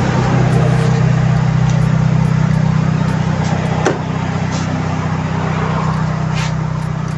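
Toyota 2E four-cylinder engine idling steadily at around 900 rpm with the air conditioning on, just after a valve stem seal replacement. A click comes about four seconds in, after which it runs a little quieter.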